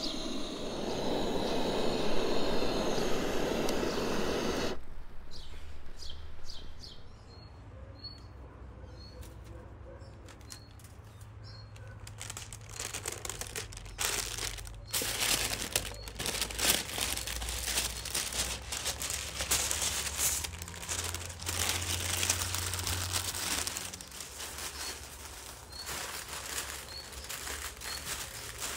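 A handheld gas torch hissing steadily as it blasts firewood, stopping abruptly after about five seconds. Then it goes quieter, with a small bird chirping about once a second. After that, parchment paper and aluminium foil crinkle and rustle as they are folded by hand.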